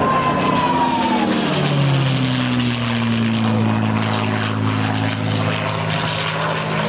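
North American P-51D Mustang's Packard Merlin V-12 engine passing by in flight. Its pitch drops about a second or two in as it goes past, then it runs steady. A high whistle falls away in the first second.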